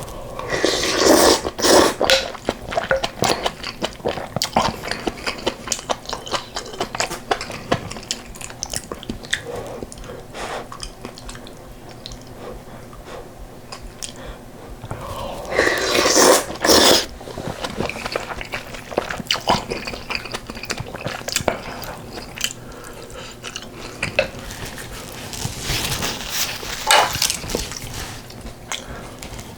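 Close-miked eating: steady wet chewing with small clicks, broken by three louder slurps of spicy beef soup with rice, each a second or two long and spaced well apart.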